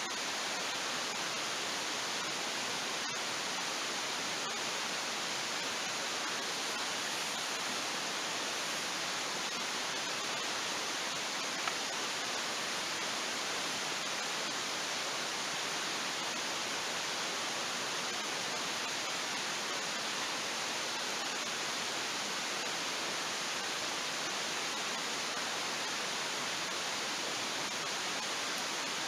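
Steady, even rushing noise with no rhythm or pitch, and one faint snap about twelve seconds in.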